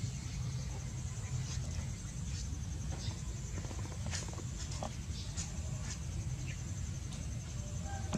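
Soft scattered taps and scuffs of a baby macaque's hands and feet on a plastic tabletop, over a steady low background rumble and a faint high pulsing hiss.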